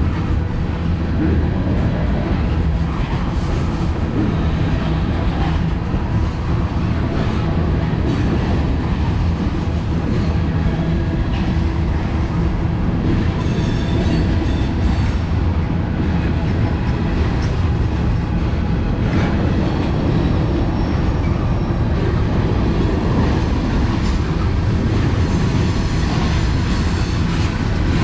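Freight cars of a mixed manifest train rolling past: a steady heavy rumble of steel wheels on rail, with brief high wheel squeals now and then.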